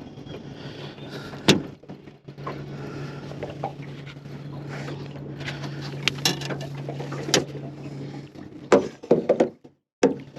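Sounds on a small fishing boat: a steady low hum with a few sharp knocks, one about a second and a half in and several close together near the end.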